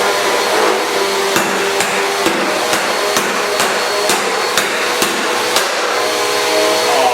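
Dirt Devil upright vacuum cleaner's motor running steadily while its body is struck with a hammer, a steady series of sharp knocks about two a second, meant to knock out its headlight. The knocks stop about five and a half seconds in, and the motor keeps running.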